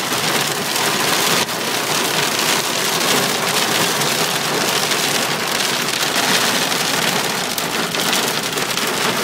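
Heavy rain and hail pelting the car's roof and windshield, a dense, steady patter of countless small impacts heard from inside the car.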